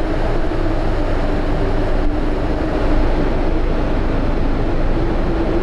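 Strong hurricane wind blowing steadily, a dense rushing noise with a faint wavering low tone in it.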